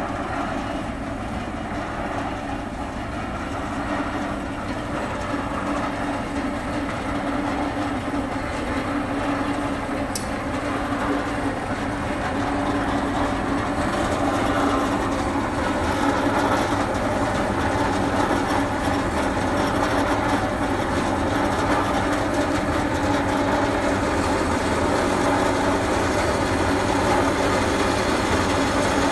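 DoALL C-4 horizontal metal-cutting band saw running, its blade cutting down through square metal tubing held in the vise: a steady machine noise that grows slightly louder as the cut goes on.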